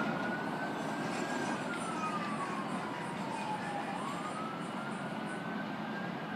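An emergency vehicle's wail siren, its pitch sliding slowly down for a few seconds, then climbing sharply about four seconds in and starting to fall again near the end, heard over a steady background rumble.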